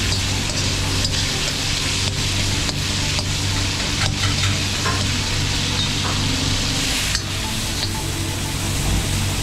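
Diced chicken sizzling in hot oil in a wok, with a spatula scraping and clacking against the wok about once a second as it is stirred. A steady low hum runs beneath.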